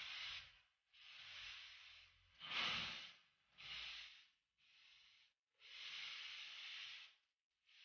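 Automotive paint spray gun hissing in short bursts of about a second each, with brief pauses between them, as paint is sprayed onto a car's body panels.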